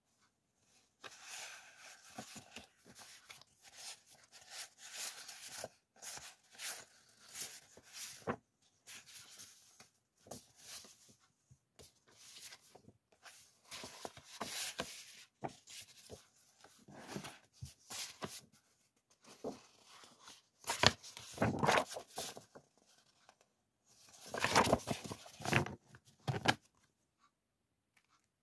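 Clear plastic packaging sleeves and sheets of printed background paper being handled, opened and shuffled: crinkling and rustling in irregular bursts with short pauses, loudest a little past the middle and again near the end.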